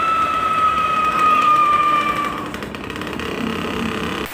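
Super giant whistle bomb firecracker whistling: one high, steady tone that slowly falls in pitch and stops about two and a half seconds in, after which it hisses and crackles.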